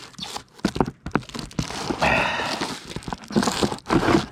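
Plastic beehive parts being handled: a run of sharp clicks and knocks, with a scraping slide about halfway through, as a board or tray is worked back into the hive.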